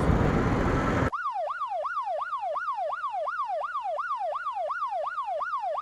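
About a second of wind and road noise from the ride, then a sudden cut to an electronic siren sound effect: a rapid, repeating wail, each sweep climbing fast and falling back, about three a second.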